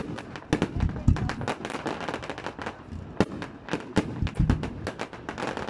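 Fireworks display: a rapid, irregular string of sharp cracks from bursting aerial shells, with a few deeper booms, the strongest about a second in and again around four seconds in.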